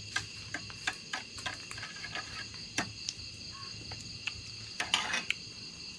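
Crickets and other night insects trilling steadily in several high pitches, with scattered light clicks and clinks of a spoon against a steel cooking bowl and a brief scrape about five seconds in.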